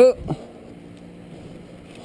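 A person's short loud cry ends right at the start, followed by a faint steady low hum.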